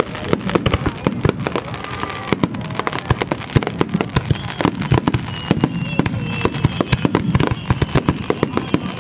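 Aerial fireworks in a dense barrage: many shells bursting in quick, overlapping bangs and crackles, with a thin high whistle in the second half.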